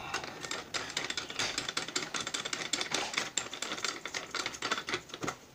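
Dense, irregular crackling static from an Icom IC-2N 2-metre transceiver converted into a base rig, switched over to receive, thinning out near the end.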